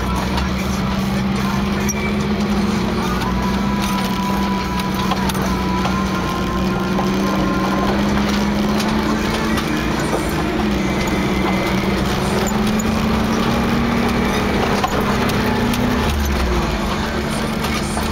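A 1988 Toyota 4Runner's engine drones steadily at low speed on a rocky dirt trail, heard from inside the cab, with its pitch drifting slightly. Tyres crunch over gravel under it, with small knocks and rattles.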